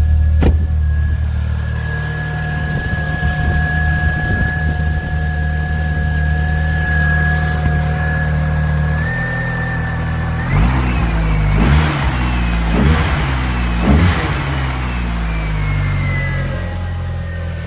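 VW Golf Mk4 GTI's 1.8-litre turbocharged four-cylinder (AGU) engine idling steadily, then revved in four quick throttle blips a little past halfway before settling back to idle, with a thin high whine alongside. It is running on a newly fitted ignition amplifier, the failed one having caused a severe misfire.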